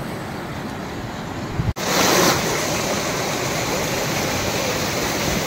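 Mountain stream rushing over rocks, a steady roar of water. About two seconds in it cuts abruptly to a closer, louder and brighter rush of white water.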